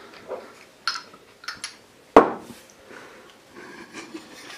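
Handling noise of small objects knocked on a wooden table: a few light clicks and knocks, with one loud knock about two seconds in.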